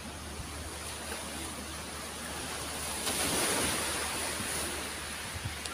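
Sea surf washing onto a pebble beach: a steady rush of waves, with one wave swelling louder about three seconds in and then fading.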